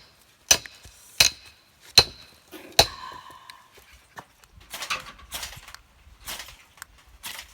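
A run of sharp strikes, like a blade or hammer hitting wood: four loud, evenly spaced blows in the first three seconds, each with a short ring, then several softer, duller strokes.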